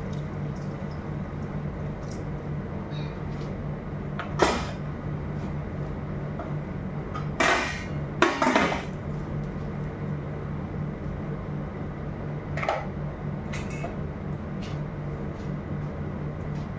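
Stainless steel cooking pots and a utensil knocking and clattering on a gas stove: a few sharp knocks, the loudest two close together about seven and eight seconds in, over a steady low hum.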